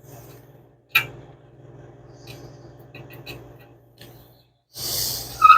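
Small handling clicks and taps on loose dash parts over a steady low hum: a sharp click about a second in, a few faint ticks, then a short hissing scrape near the end.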